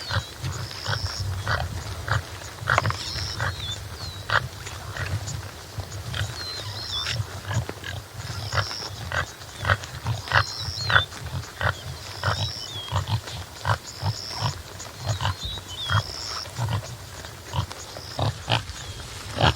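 Topi antelope grunting repeatedly in low, short pulses. A high whistled call recurs about every couple of seconds behind them, with scattered sharp clicks.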